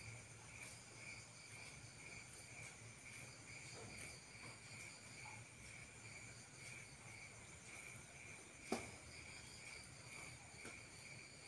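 Faint cricket chirping, a steady pulsing high trill, with one sharp click a little under nine seconds in.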